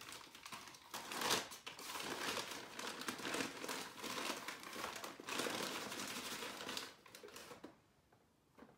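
Paper flour bag rustling and crinkling as it is handled and a measuring cup is scooped into the flour, loudest about a second in; the rustling stops about seven seconds in.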